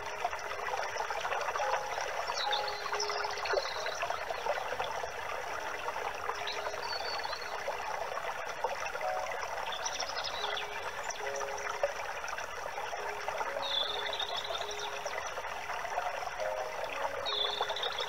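Water trickling steadily, like a small stream, with a bird's short high chirps every few seconds.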